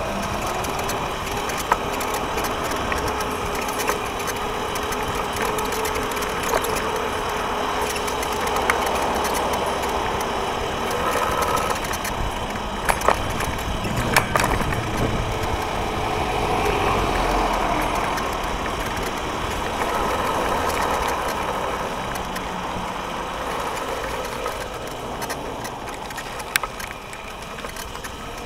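Electric scooter in motion: small wheels rumbling and rattling over rough asphalt, with scattered sharp knocks over bumps. A thin steady whine runs under it for the first half and fades out a little past halfway.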